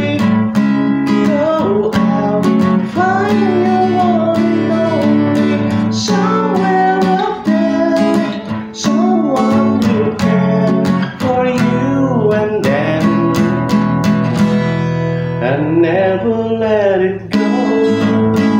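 Music: acoustic guitar strumming steadily, with a gliding melody line on top.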